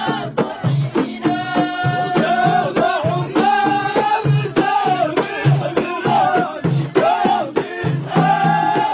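Ahidous, the Amazigh collective dance-song: voices singing long, wavering melodic lines over a steady, regular beat of frame drums, with sharp hand claps.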